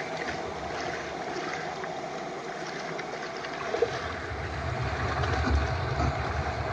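Shallow stream water swishing and splashing as a seine net on bamboo poles is swept through it, heard from a camera held in the mouth. The steady rushing noise is joined by low rumbling handling thuds that grow louder about four seconds in.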